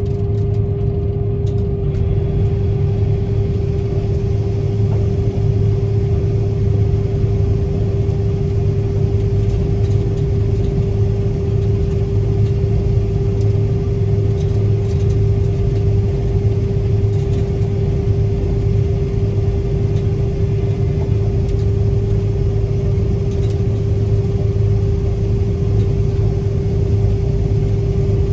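Combine harvester running steadily: a constant low drone with a steady whine above it.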